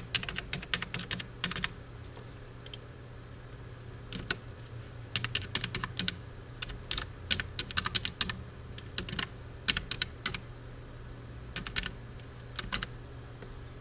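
Computer keyboard being typed on in quick runs of keystrokes separated by short pauses.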